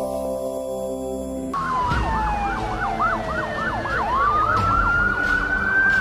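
A short channel jingle ends about a second and a half in. Then emergency-vehicle sirens sound: one yelping in quick rises and falls, about three a second, over a slow wail that glides down and then rises and holds.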